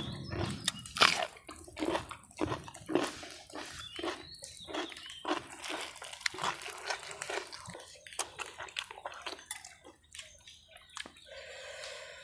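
Close-miked eating sounds of cucumber and beef offal dipped in chilli sauce: crisp bites and wet chewing, a run of short sharp mouth clicks with a few louder crunches in the first seconds.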